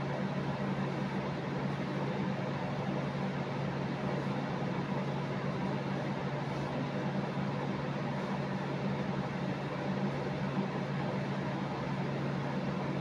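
Steady mechanical hum: a constant low drone with an even hiss over it, unchanging.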